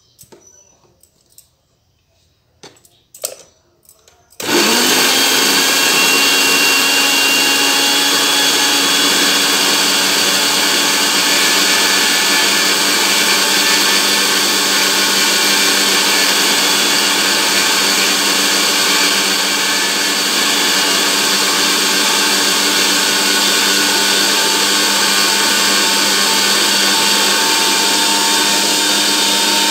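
An electric kitchen mixer grinder starts suddenly about four seconds in and runs steadily at full speed, grinding whole cumin seeds to powder. A few light clicks of handling come before it starts.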